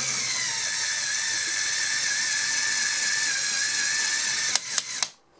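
Lego linear actuators and their gearing running the lift's string pulleys: a steady mechanical whir with a high whine. It stops with a few sharp clicks near the end.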